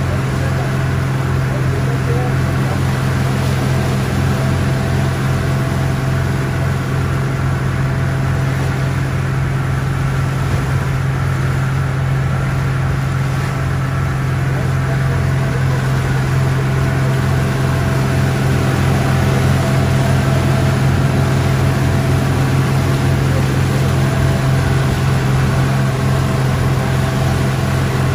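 An engine running steadily: an even, unbroken drone with a strong low hum.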